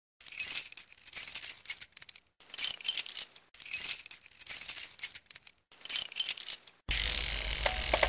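Swells of bright, glittering metallic jingling, about one a second, laid over an animated title sequence. About seven seconds in, a steady music track starts.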